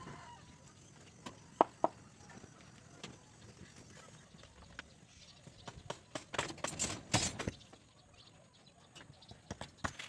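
Butane blowtorch heating PVC electrical conduit over a steel rebar mat, with a faint hiss under sharp clicks and knocks from the pipe and torch against the rebar: two about one and a half seconds in, and a busy cluster near seven seconds.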